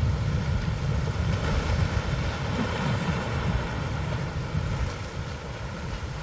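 Ocean surf washing continuously, with wind buffeting the microphone in a low, gusty rumble that eases slightly near the end.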